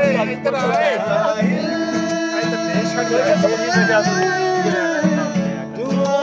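Acoustic guitar played in a steady rhythm while several men sing along together in an informal group sing-along.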